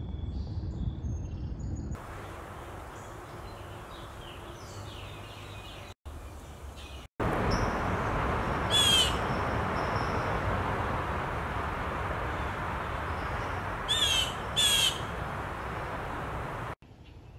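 Blue jay giving harsh calls over a steady hiss: one call about nine seconds in, then two in quick succession a few seconds later.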